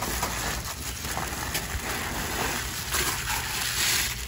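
Packing material rustling as tissue paper and a cloth wrap are pulled out of a cardboard box, loudest near the end.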